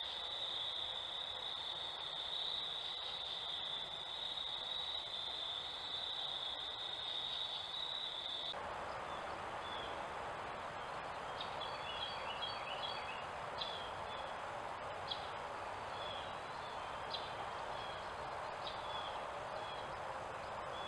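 A steady high-pitched insect chorus trilling at night over a faint hiss. It stops abruptly about eight and a half seconds in and gives way to birds calling at dawn: a brief burst of quick chirps, then single sharp call notes about every second and a half.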